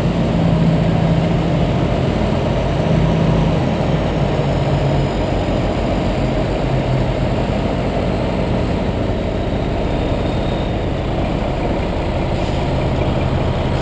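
Heavy diesel truck engine idling steadily, a constant low hum.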